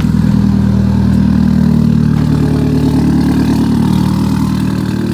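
Chevrolet Cobalt SS four-cylinder engine running just after a jump start from a dead battery. Its revs rise a little at the start, then it runs steadily.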